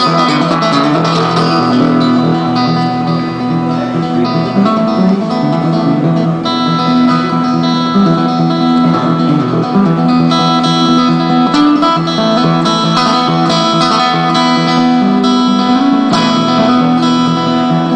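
Acoustic guitar music: a steady run of plucked notes and chords.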